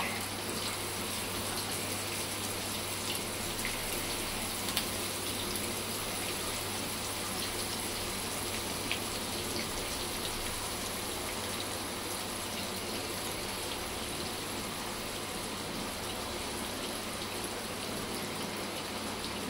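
Masala-coated prawns shallow-frying in hot oil on a flat tawa: a steady sizzle with an occasional small pop.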